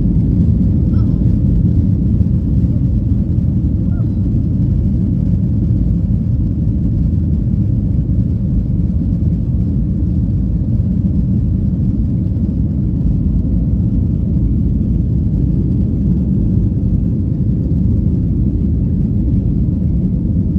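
Steady low drone of an airliner cabin in flight: engine and airflow noise, even and unchanging throughout.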